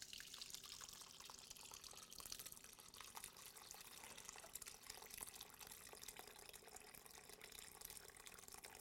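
Coconut milk (boiled shredded coconut and water) poured from a saucepan through a cheesecloth-lined strainer into a glass bowl: a faint, steady stream of liquid splashing, with small crackles.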